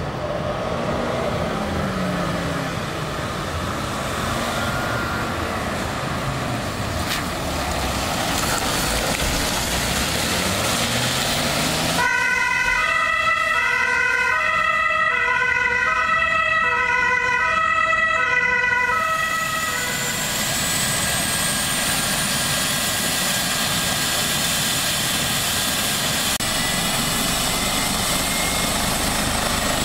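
An ambulance pulls away, its engine running under a steady rush of noise. After a sudden cut, a two-tone ambulance siren alternates high and low for about seven seconds. Then an air ambulance helicopter's turbine starts up: a whine that slowly rises in pitch while the rotor turns slowly.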